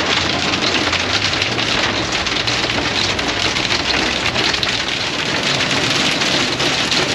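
Hail and heavy rain drumming on a motorhome's windshield and roof, heard from inside the cab as a dense, steady patter of many small hits.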